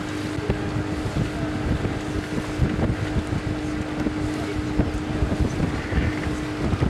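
Boat motor running steadily with a constant hum, with wind buffeting the microphone.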